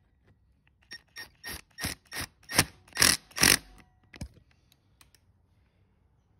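Cordless power driver run in about ten short bursts over three seconds, spinning small 10 mm bolts down snug into a motorcycle engine cover.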